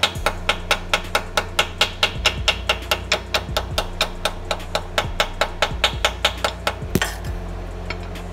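A steel hammer tapping a new differential pinion seal into its housing, working around the seal's edge: a fast, even run of sharp metal taps, about five a second, that stops about seven seconds in.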